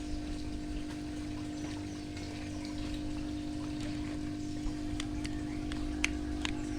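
Water trickling and pouring steadily over the constant hum of an electric water pump, as from a fish pond or aquarium filter. A few sharp clicks come about five to six and a half seconds in.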